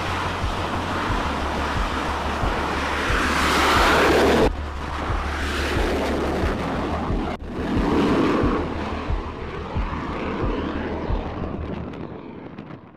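Jet engine noise of a T-45 Goshawk's Rolls-Royce Adour turbofan at high power on a carrier flight deck, with some wind on the microphone. The noise swells to a peak about four seconds in and breaks off abruptly. It swells again around eight seconds and fades away near the end as the jet flies off.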